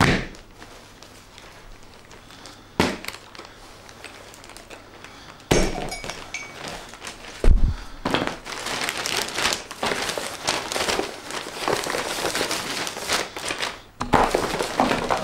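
Packaged merchandise and a T-shirt being tossed onto a leather footstool and sofa: a few separate thumps and clatters, then about six seconds of continuous crinkling and rustling of packaging, with another thump near the end.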